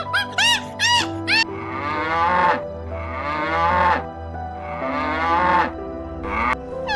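A cow mooing: three long moos, about a second each, over soft background music. A few quick high chirping calls come just before the first moo.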